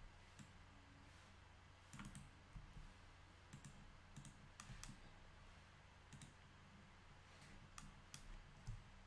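Faint, scattered clicks of a computer mouse and keyboard keys, a dozen or so at uneven intervals, over a low steady hum.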